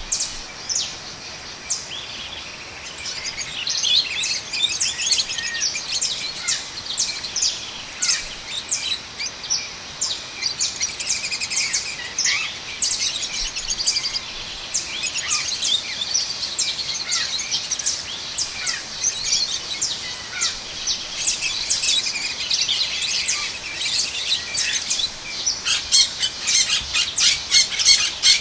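A chorus of many small birds chirping and twittering: quick, high, overlapping notes with a few short downward-sliding whistles, growing busier and louder near the end.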